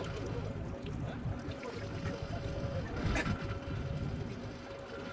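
Deck ambience on a fishing boat at sea: a steady low rumble with wind and water noise and a faint steady tone that comes and goes. One sharp knock sounds about three seconds in.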